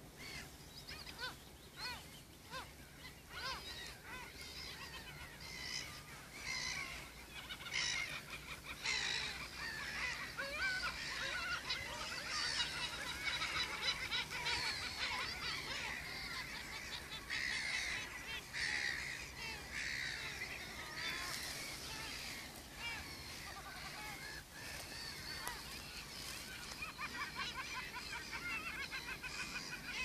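A dense chorus of many birds at a nesting colony, calling over one another without pause, loudest around the middle.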